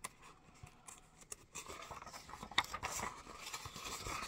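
A paper pack of foundation piecing paper being handled: faint irregular rustling and small clicks of paper, sparse at first and getting busier about two seconds in.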